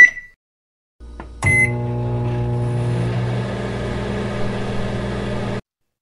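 Microwave oven heating: a short beep, then the oven starts with a click and runs with a steady hum for about four seconds before cutting off abruptly.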